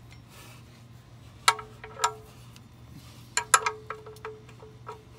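A metal wrench clinking on the oil pan drain plug as the plug is snugged up: sharp metallic clinks that ring briefly, a pair about a second and a half in and a quick cluster around three and a half seconds, then a few lighter ticks.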